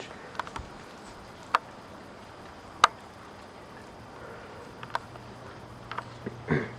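Steady hiss of wind and falling wet snow, broken by a few sharp, irregular ticks, the loudest about three seconds in; a low steady hum joins about five seconds in.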